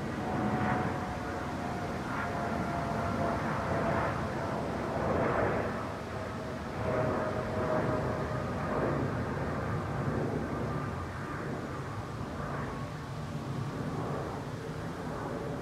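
Boeing 787-9 Dreamliner jet engines heard from below as the airliner climbs away overhead: a steady rumble with a faint whine that slowly falls in pitch as the plane recedes.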